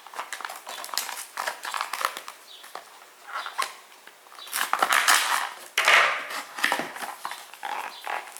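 A small cardboard box being opened and its packaging handled by hand: irregular rustling, scraping and clicking, loudest in a run of crinkling bursts about halfway through.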